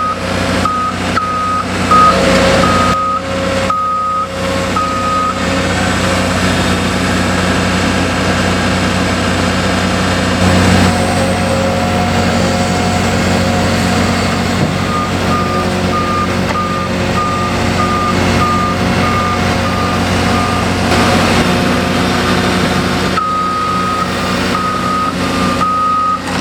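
Heavy construction machinery running, with a diesel engine drone under the beeping of a backup alarm. The alarm beeps about once a second at the start and again near the end. In the middle a fainter, quicker beeping sounds, and the engine note grows louder about ten seconds in.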